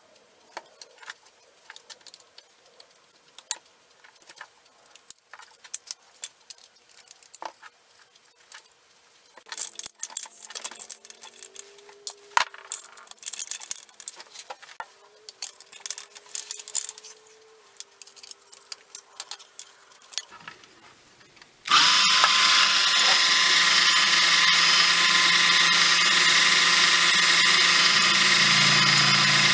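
Clicks and knocks of the Unimat 1's plastic and aluminium parts being fitted together by hand, busier in the middle. About two-thirds of the way through, the Unimat 1's small electric motor, set up as a drill press, starts abruptly and runs with a steady high whine.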